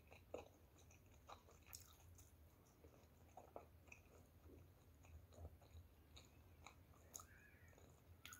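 Faint chewing of a mouthful of food with the mouth closed: soft, scattered mouth clicks and smacks every second or so.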